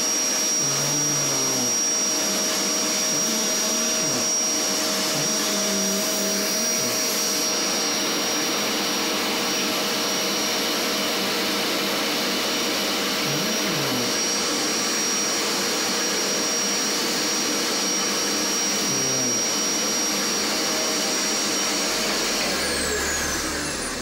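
Vacuum cleaner running steadily with a high whine, its nozzle being brushed over a cat's fur. Near the end the whine falls away as the motor winds down.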